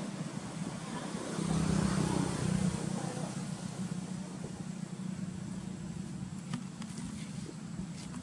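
A motor engine running steadily in a low hum, swelling louder for a second or so near the start.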